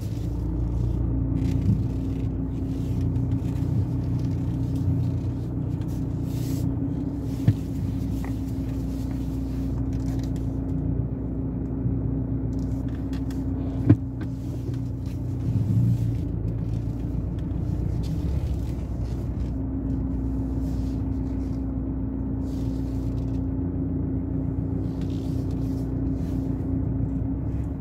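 Car engine and road rumble heard from inside the cabin while driving slowly, a steady low hum with a couple of sharp clicks along the way.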